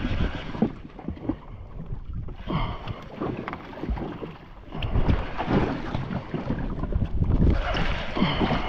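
Wind buffeting the microphone on a jet ski out at sea, rising and falling in gusts, with scattered small knocks.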